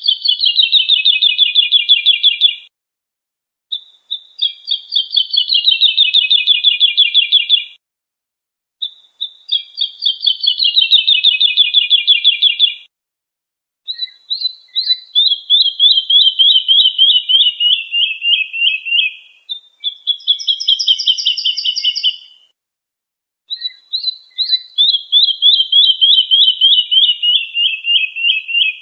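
A lark singing: six high, rapid trilled phrases, each a run of quick notes sliding slightly downward in pitch, lasting two to five seconds, with pauses of about a second between them.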